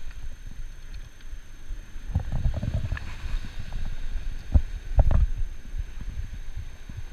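Low, uneven rumble on the microphone with a few dull knocks, about two, four and a half and five seconds in.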